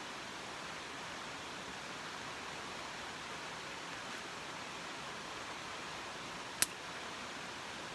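Steady hissing background noise, with one sharp click near the end.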